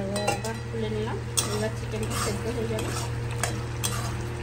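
A spatula stirring chicken curry in a wok-shaped metal kadai as it simmers, with several sharp knocks of the spatula against the pan, under a steady low hum.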